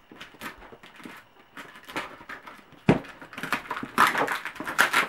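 Scissors snipping through sticky tape and ribbon on a paper-wrapped gift box, with wrapping paper crinkling, a thump about three seconds in, and denser crinkling near the end.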